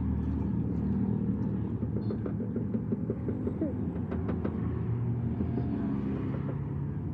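An engine or motor running steadily with a low rumble, with a few light clicks and knocks.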